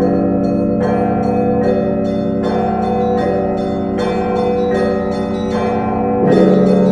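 Russian Orthodox cathedral bells rung together in a festive peal. Quick strokes on the small bells ring over a heavier bell struck at an even beat a little under once a second, and the bells' tones hang on between strokes.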